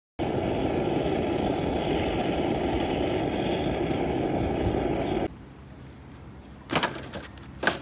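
A steady, loud rushing noise that cuts off suddenly about five seconds in. Then quieter open-air ambience with two sharp knocks near the end.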